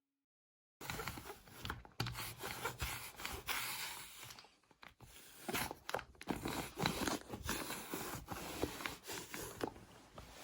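Close-up household handling sounds: rustling with many light clicks and knocks, starting about a second in after a moment of silence.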